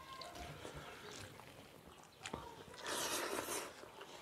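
Quiet eating sounds of hands mixing rice and curry on steel plates, with chewing and small clicks. About three seconds in, a short hiss of noise lasting under a second is the loudest sound.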